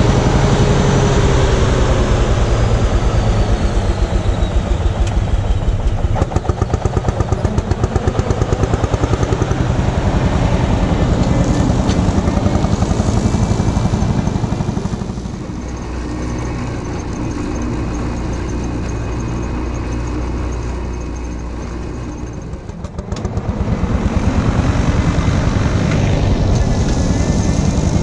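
Lanz Bulldog D6516's single-cylinder two-stroke engine running under load with a steady, even beat while driving a flail mulcher. It goes quieter for several seconds past the middle, then comes back loud.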